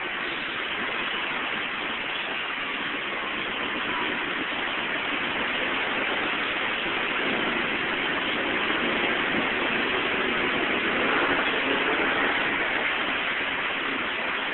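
Heavy rain and traffic on a wet road: a steady hiss of rain and tyres on water, growing louder about eleven seconds in.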